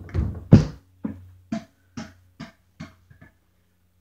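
A basketball bouncing on a floor: a loud knock about half a second in, then about seven bounces, each one quicker and fainter, until the ball settles just after three seconds in.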